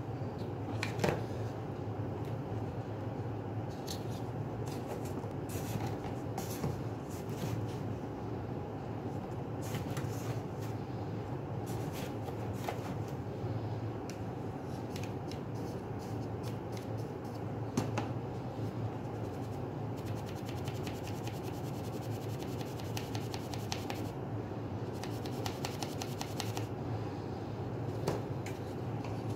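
Plastic sand toys, a scoop-strainer and a small shovel, scraping and crunching through kinetic sand in a plastic tub. There are scattered scrapes and clicks, and a stretch of quick fine rasping about two-thirds of the way through, over a steady low hum.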